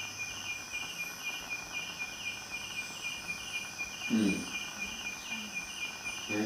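Night insects chirping in an even pulsing rhythm, about three pulses a second, over a continuous high-pitched drone. About four seconds in there is a brief low vocal sound.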